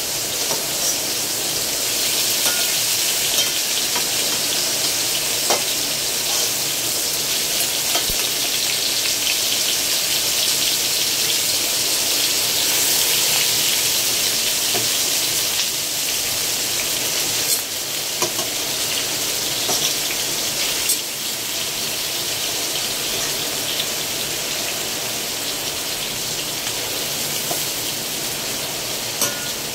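Chicken pieces and chopped onion sizzling in hot oil in a stainless steel wok, a steady frying hiss with a few scattered clicks.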